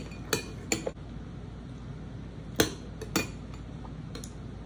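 Metal spoon clinking against a glass bowl while scooping, a handful of separate clinks with the loudest about two and a half seconds in.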